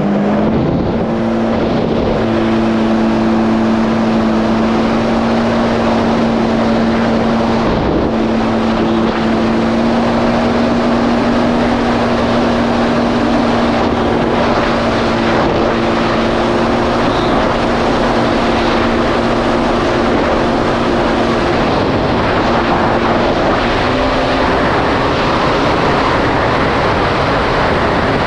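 Supercharged Yamaha GP1800R SVHO jet ski running at a steady high speed, with wind and water rushing over it. Its engine note climbs at the very start and then holds, dipping slightly about three quarters of the way through.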